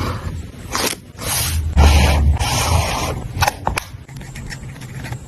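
Paper journaling materials handled close to the microphone: several short scraping, rustling strokes of paper, then a couple of sharp clicks and some lighter taps near the end.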